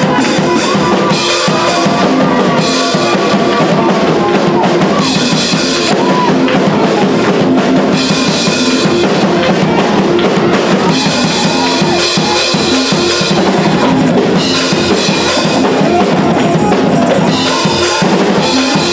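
Live church band music: a drum kit playing a steady beat with snare and cymbal hits over held chords.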